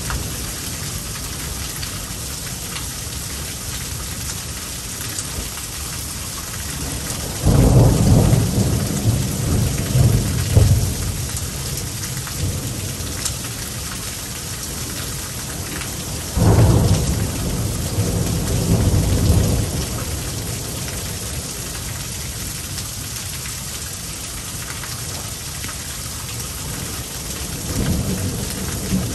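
Heavy, steady rain during a thunderstorm, with two loud thunderclaps that break in suddenly, about a quarter and about halfway through, each rumbling on for a few seconds. Another roll of thunder builds near the end.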